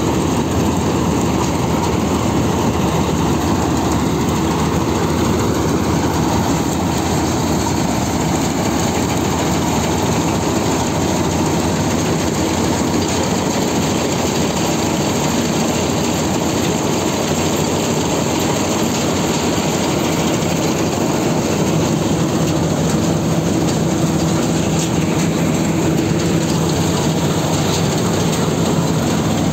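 Combine harvester running close by: a steady, loud mechanical noise of engine and machinery with a constant low hum, unchanging throughout.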